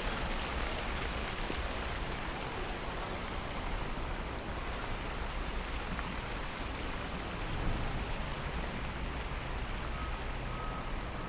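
Steady rushing noise of outdoor ambience, with a few short high beeps near the end.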